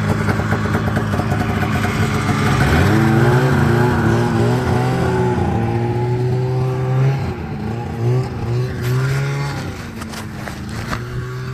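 1991 Polaris Indy 400 snowmobile's two-stroke engine running under throttle. The first few seconds are a loud rush as the sled passes close; after that it settles into a steady drone as it pulls away. In the second half the throttle is eased off and opened again several times.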